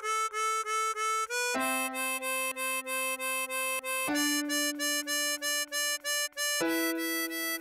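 Diatonic harmonica playing short notes repeated about four a second, among them the bent hole-3 draw (A4) and the hole-4 blow and draw (C5, D5), over sustained backing chords that change every couple of seconds.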